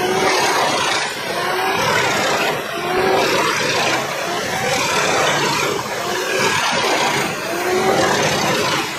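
A large log-processing machine runs with its spiked steel feed roller turning against a log, making dense grinding machine noise. A short pitched squeal comes back about once a second as the noise swells and dips.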